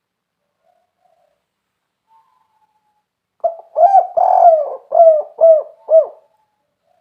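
Spotted dove (tekukur) cooing one full phrase starting about three and a half seconds in: a couple of short notes and a longer drawn-out coo, then three short arched coos at the end. This is the 'kuk 3' song type.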